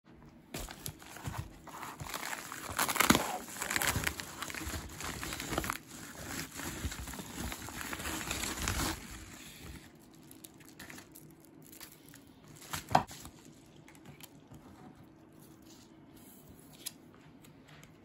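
Plastic crinkling and rustling, dense and irregular for the first nine seconds or so, then fading to occasional light rustles, with one sharp knock about thirteen seconds in.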